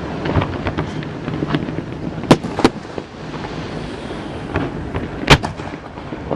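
Fireworks shells bursting in a series of sharp bangs over a steady background of noise. Two loud reports come close together a little past two seconds in, and the loudest bang comes about five seconds in.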